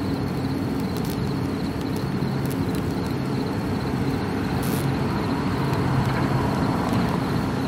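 Heavy diesel fire apparatus engines running steadily, pumping water for the master streams, with a constant low hum under a continuous rushing noise.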